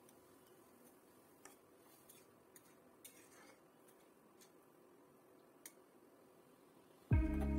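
Faint, scattered clicks and scrapes of a metal spatula against a wok as chopped cabbage is stirred in water, over a low steady hiss. Near the end, loud music starts abruptly.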